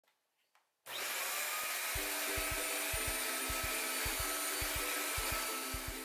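Sowtech 2-in-1 corded stick vacuum, a suction-only model with no roller brush, running on low-pile carpet: a steady rush of air and motor whine that comes in abruptly about a second in. Background music with plucked notes and a regular bass beat joins about two seconds in.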